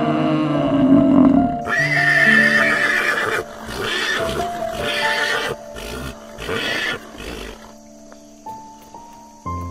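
Animal calls over gentle background music: a low call for the first second and a half, then a long, loud, high-pitched call, then several shorter breathy calls that fade off.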